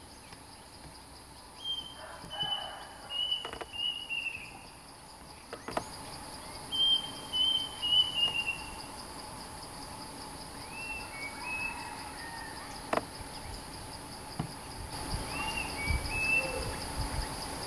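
Bulbul song: four phrases, each a quick run of short, falling whistled notes, with pauses of a few seconds between them. A steady high insect buzz runs underneath.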